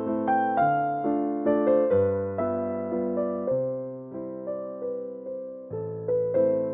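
Background music: a piano or electric piano playing a slow, gentle melody over chords, each note struck and fading.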